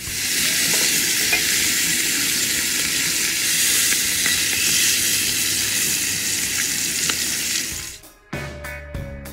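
Steaks searing in butter in a cast-iron skillet: a loud, steady sizzle with a few light clicks of a fork turning them. The sizzle cuts off suddenly near the end, and music comes in.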